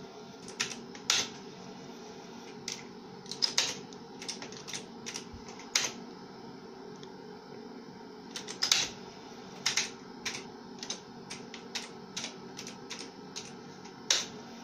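Keystrokes on a computer keyboard: sharp clicks in short, irregular runs as commands are typed at a DOS prompt, over a steady low hum.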